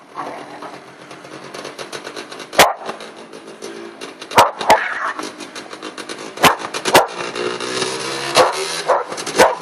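A dog barking sharply about seven times over the steady running of a child's small quad's motor.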